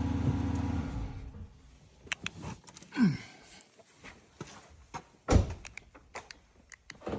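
Chrysler 300C engine idling, then switched off about a second in. Scattered clicks and knocks follow, with a loud thud about five seconds in and another near the end.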